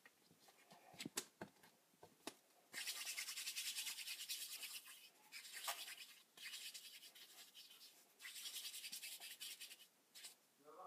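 Palms rubbing quickly together in circles as a lump of Fimo polymer clay is rolled into a ball: a fast, hissing rub in four stretches of one to two seconds, with short breaks between them. A few light clicks come in the first two seconds.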